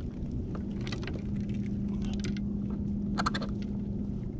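Handling noise as a king salmon is hoisted on a Boga Grip lip-gripper: a few sharp clicks and light metallic rattles, the loudest about three seconds in. Under them runs a steady low hum.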